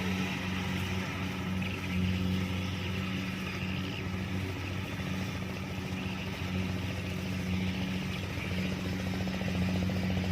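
Kubota DC-70 rice combine harvester running steadily, its diesel engine holding an even drone under the clatter of the machine.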